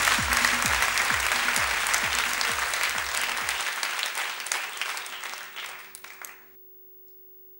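Theatre audience applauding over music with a steady low drum beat. The beat stops about three and a half seconds in, the applause dies away by about six and a half seconds, and a faint steady hum is left.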